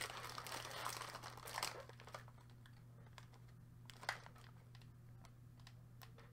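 Plastic Oreo cookie package crinkling as it is handled for about two seconds, then quiet room tone with a low steady hum and a few faint taps.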